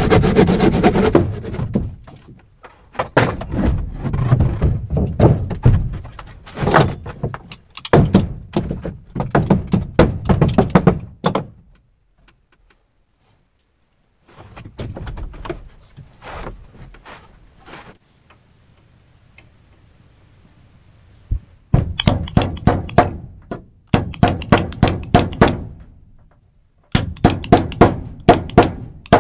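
Blows on wood during shelter building, in clusters of thunks with short pauses, then fast even runs of about four strikes a second near the end. A brief rasping, like sawing or rubbing, stops about a second in.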